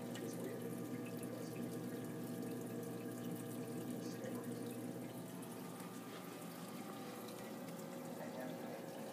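Reef aquarium's circulating water trickling and dripping over a steady hum from the tank's equipment.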